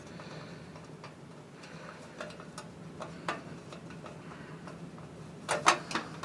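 Scattered light metallic clicks and ticks as small screws and a handle are fitted by hand against a thin sheet-steel drawer front, with a sharper cluster of clicks about five and a half seconds in.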